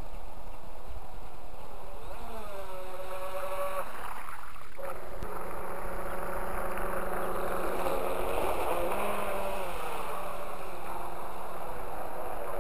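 Warrior Mk2 radio-controlled model boat's motor whining out on the water, its pitch rising and falling as the throttle changes, over a steady wash of wind and water noise.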